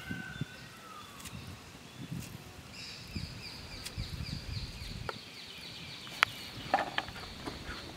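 Birds calling: a few whistled notes, then from about three seconds in a long, fast, high trill of repeated falling notes. A few sharp clicks come near the end.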